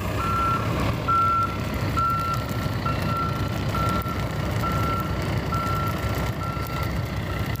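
Backup alarm of a heavy snow-removal vehicle beeping steadily, a single tone about once a second, over a low engine rumble.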